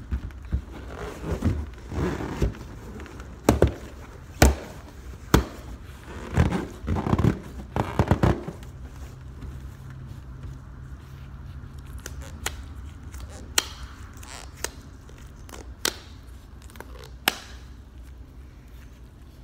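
Latex-gloved hands rubbing, squeezing and tapping a clear latex balloon with confetti inside. For about the first eight seconds there is dense squeaky rubbing with many sharp taps. After that it goes quieter, with a few single sharp taps spaced out.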